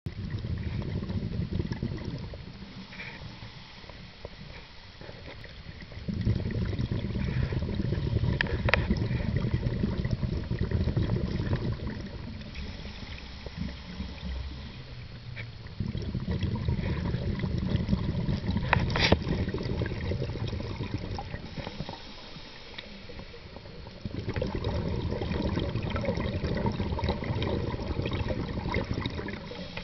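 A scuba diver's regulator breathing underwater: long rumbling bursts of exhaled bubbles, three of them several seconds each, alternating with quieter stretches of inhaling. A couple of sharp clicks come near 9 s and 19 s.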